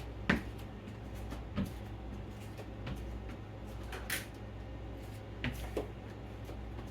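A few light, separate knocks and clicks of kitchenware being handled while hot water is measured out for Jello, over a steady low hum.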